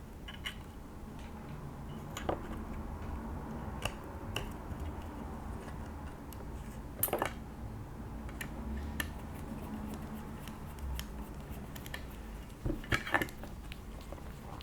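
Small parts and hand tools being handled on a workbench: a few scattered light clicks and taps, the sharpest about seven seconds in and two close together near the end, over a low steady hum.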